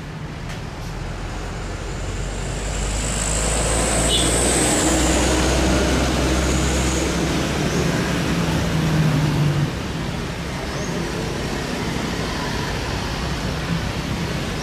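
Jet airliner engines swelling to a loud rumble with a high whine on top, then dropping off sharply about ten seconds in.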